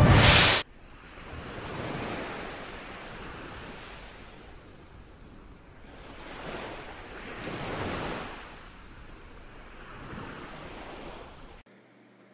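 Sea waves washing, a rushing noise that swells and fades in slow surges, cutting off shortly before the end. It opens with the last half-second of loud intro music.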